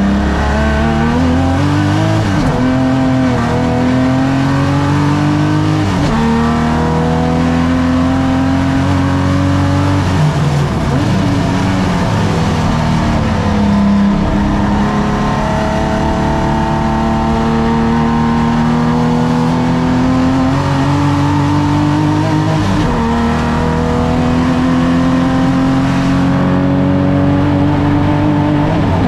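Pre-1965 racing saloon car's engine at full throttle on track, its note climbing steadily through each gear and falling sharply at several gear changes and lifts.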